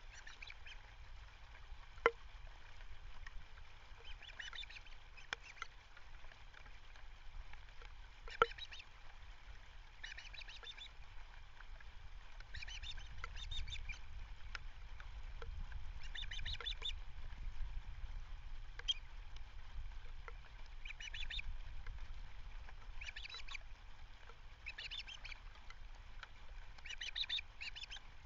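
Osprey calling in bursts of rapid, high chirps, about ten bursts repeated every two to three seconds. Two sharp clicks stand out in the first third, over a steady low rumble.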